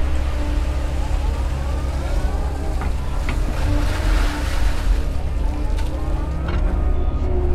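Doosan excavator's diesel engine and hydraulics running under load. A whine rises in pitch twice as the machine works, with a few sharp knocks in between.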